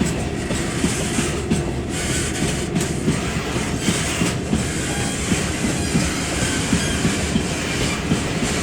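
Model freight train running along the track: continuous rolling rumble with repeated clicks of the wheels over rail joints, a little under a second apart.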